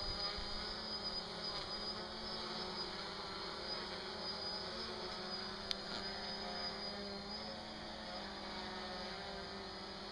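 Multirotor camera drone flying above, a steady buzzing hum. A single brief click a little past halfway.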